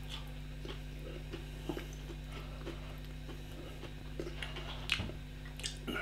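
Close-up chewing of a mouthful of breaded, spicy chicken chunk: soft, regular mouth clicks, with a couple of sharper clicks near the end. A steady low hum sits underneath.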